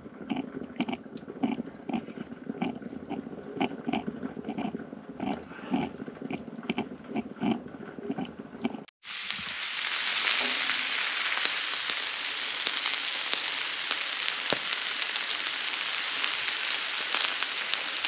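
Stovetop percolator coffee pot perking, the coffee gurgling up in short regular spurts about two or three times a second. After a cut about nine seconds in, slices of deer bologna sizzle on foil on the wood stove's top with a steady frying hiss.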